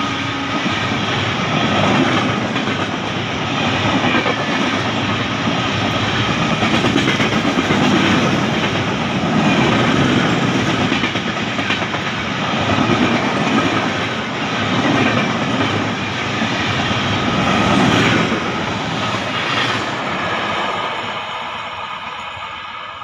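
Coaches of the Geetanjali Superfast Express rushing past at speed, the wheels clattering over the rail joints in a clickety-clack that swells and dips every couple of seconds. It fades away near the end as the rear of the train draws off.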